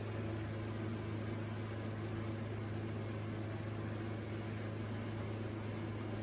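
Hot air brush hair dryer running steadily: an even rush of blown air over a low motor hum.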